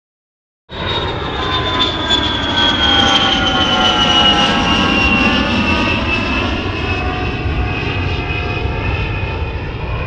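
Jeep engine idling at about 1,000 rpm, heard from inside the cabin: a steady running sound with a whine that slowly falls in pitch. It cuts in suddenly just under a second in. The engine is now running after its crank/no-start fault.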